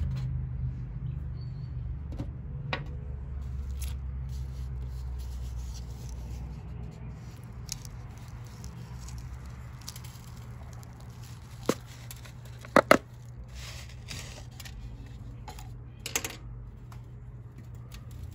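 Thin plastic cup handled and squeezed to free a cedar seedling's root ball, giving a few sharp crackles and clicks, the loudest a quick pair about two-thirds of the way through and another near the end. A steady low rumble runs underneath.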